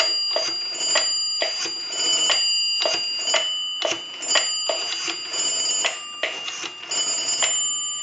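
Rotary dial of a Northern Electric QSD-3A three-slot payphone being turned and let run back, dialing a number: a run of sharp clicks, about three a second, over a steady high tone.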